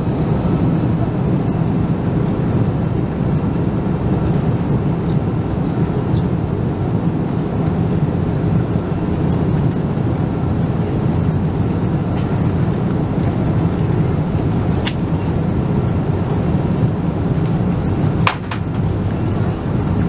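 Steady airliner cabin noise: an even, deep rumble of engines and rushing air with a faint steady whine, broken by two sharp clicks in the second half.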